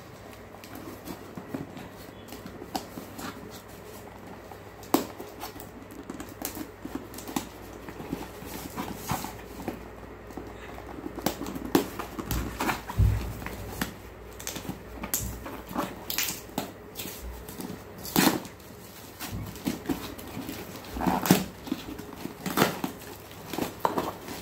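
Hands opening a cardboard courier parcel: rustling, tearing and crinkling of cardboard, paper and plastic wrap, with scattered sharp crackles and handling knocks and a dull bump about halfway through.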